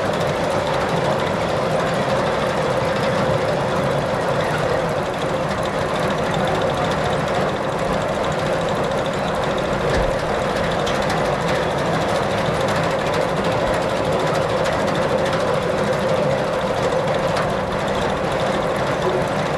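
Vehicle engine running steadily at an even speed.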